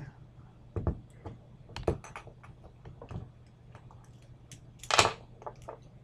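Scattered light metallic clicks and clacks from handling and taking apart an opened Master Lock Pro Series 6850 brass padlock, with one louder clack about five seconds in.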